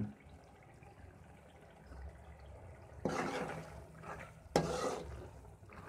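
Slotted spatula stirring chicken, peas and masala in a metal pan: two scraping strokes, about three and four and a half seconds in.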